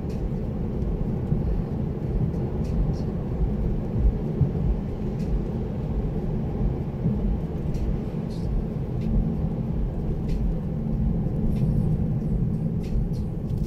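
Inside a moving car's cabin: steady low road and engine rumble, with faint scattered clicks now and then.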